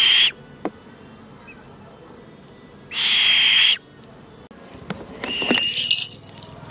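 Fish owl giving a harsh, hissing screech with a thin whistle running through it. One screech ends just after the start and another of about a second comes about three seconds in, then a shorter, broken call with knocks and rustles between five and six seconds.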